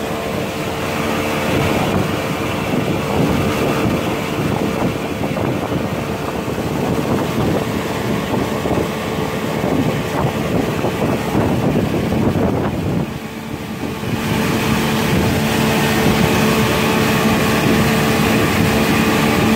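Pontoon boat's outboard motor running steadily at speed, with water splashing along the pontoons and wind on the microphone. The sound dips briefly about two-thirds of the way through.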